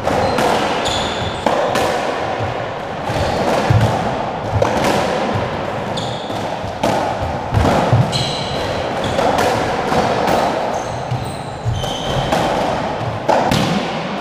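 Squash rally: the ball smacking off rackets, walls and the wooden floor at irregular intervals, echoing in the enclosed court, with short squeaks of players' shoes on the floor.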